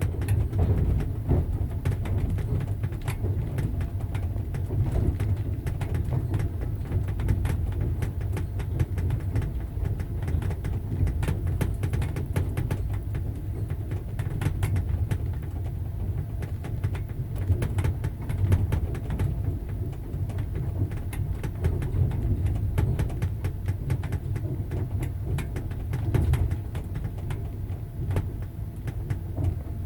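Passenger train running on the rails: a steady low rumble with frequent sharp clicks and knocks of the wheels.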